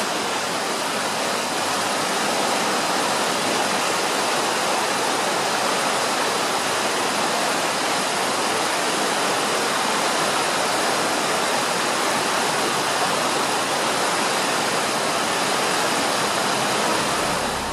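Fast mountain river running in whitewater over rocks: a steady, dense rush of water that drops off a little near the end.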